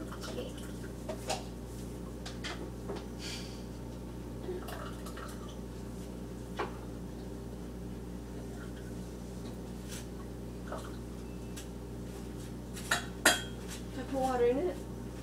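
Cutlery clinking and tapping against dishes at a kitchen counter, scattered light clicks over a steady low hum, with two louder clacks near the end.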